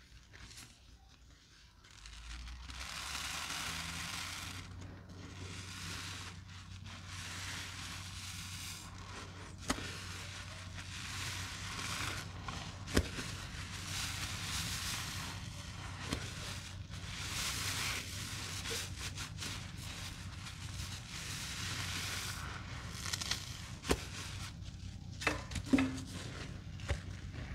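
Sponges soaked with cleaning paste and yellow dish soap being squeezed and rubbed by hand: a crackling, scraping rub that swells and fades in waves, with a few sharp clicks.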